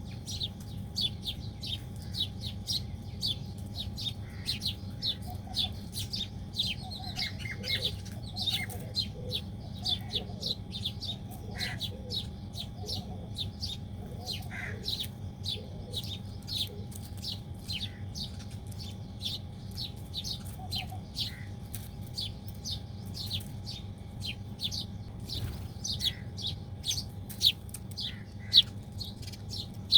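A flock of small birds chirping rapidly and without a break, many short high notes a second, with a few lower calls mixed in for a while in the middle, over a faint steady background hum.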